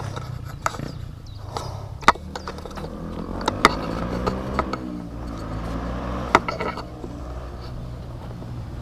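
Beta RR 125 LC motorcycle engine with a GPR aftermarket exhaust idling steadily, with a few sharp clicks over it.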